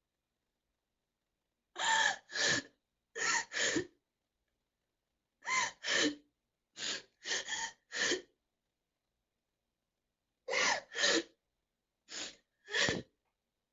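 A girl crying, catching her breath in short gasping sobs that come mostly in pairs, with silent pauses between them.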